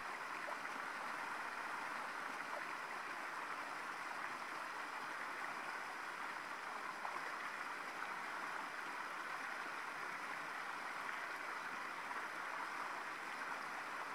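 A steady, even rushing noise with no distinct sounds in it.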